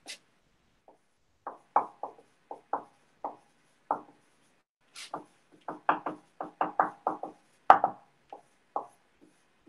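Marker writing on a whiteboard: a run of short taps and squeaky strokes as letters are drawn, in two bursts with a brief pause in between.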